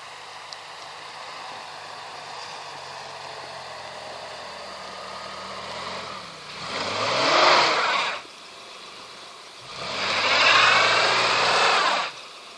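Mitsubishi Pajero engine running steadily as it approaches, then revving hard twice, each burst about two seconds long, as the 4x4 pushes through deep snow with its all-terrain tyres spinning and throwing snow.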